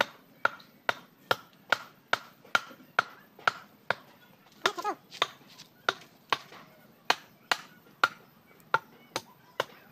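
A hand tool chopping again and again in a steady rhythm, a little more than two sharp strikes a second. A short wavering call comes about halfway through.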